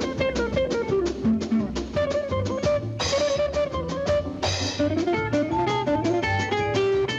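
Jaunty cartoon score music of plucked guitar and drums, with quick moving melody notes and two short cymbal-like splashes around the middle.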